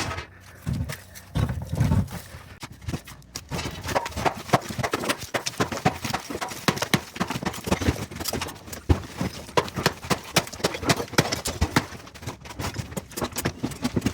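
Rapid, irregular clattering knocks of hard objects striking, becoming denser about four seconds in.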